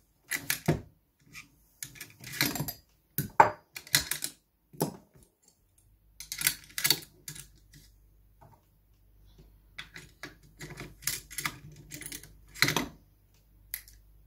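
Metal clicks, clacks and sliding of an AR-15 being stripped by hand: the upper receiver opened and the bolt carrier group and charging handle pulled out and set down, giving a run of irregular sharp clicks.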